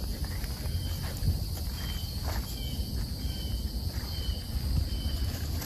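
Outdoor ambience: a steady high insect drone with short chirps repeating about every half second, over a constant low rumble.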